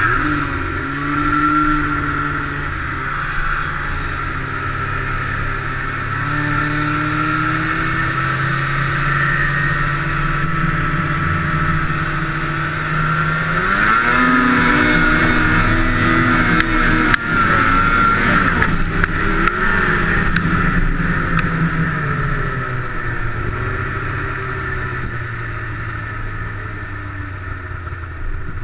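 Snowmobile engine running at speed. It revs up sharply about halfway through, holds high for several seconds, then slowly winds down.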